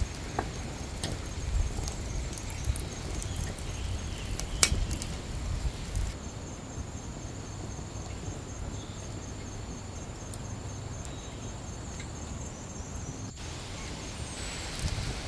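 Outdoor ambience with an insect chirping in a steady, high-pitched pulsed trill over a low rumble of wind, beside a charcoal grill fire. A few sharp clicks come through, the loudest about four and a half seconds in.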